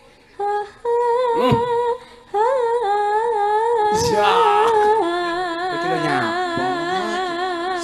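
Sinden, a female Javanese gamelan singer, singing a slow melismatic line of long held notes with wide vibrato, with short breaths just after the start and about two seconds in. About five seconds in she steps down to a lower held note.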